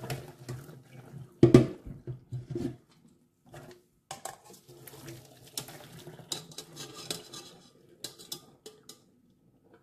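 Stainless steel pot knocking and clattering against a wire mesh strainer over a steel sink as boiled broccoli and cauliflower florets are tipped out to drain. The loudest knock comes about one and a half seconds in, followed by a run of small clinks.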